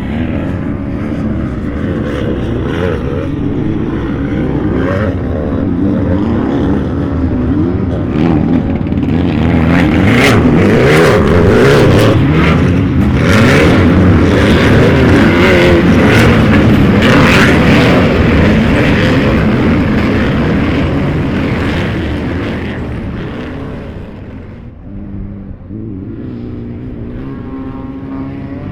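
Off-road race UTVs (side-by-sides) running at race speed, several engines at once. The engine noise builds and is loudest through the middle, drops away, and near the end a single engine's note stands out.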